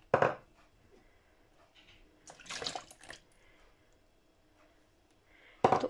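A sharp knock near the start. Then melted butter is poured into a mixing bowl of flour and eggs, splashing for about a second midway.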